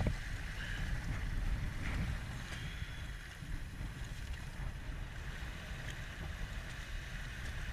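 River water rushing and sloshing around a raft on the Rio Grande, with wind buffeting the microphone in an uneven low rumble.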